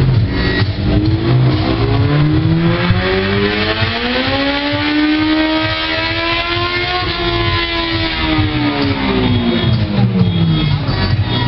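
Motorcycle engine revving up, its pitch climbing slowly and smoothly for about six seconds, then winding back down as the revs fall, over background music.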